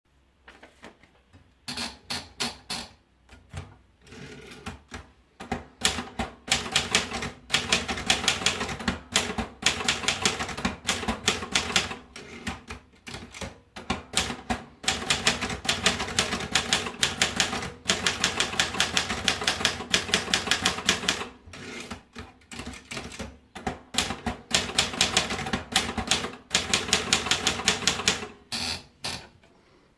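Erika manual typewriter being typed on: runs of rapid, sharp keystrokes broken by short pauses of about a second.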